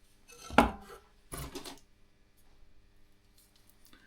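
Hard parts of a diesel heater kit being handled and set down: two short clattering knocks, about half a second and a second and a half in, followed by faint light ticks and rustles.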